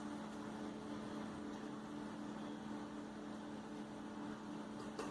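A steady low hum with faint background hiss, unchanging throughout.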